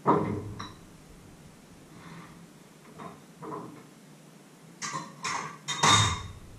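Kitchenware being handled on a wooden worktop: a loud knock at the start, a few light clicks, then a quick run of clattering knocks and clinks near the end, one with a short high ring like a glass jar or metal bowl.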